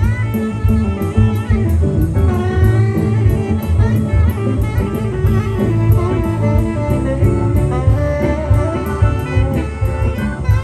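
Live blues-rock band playing an instrumental passage, a guitar lead over drums and bass.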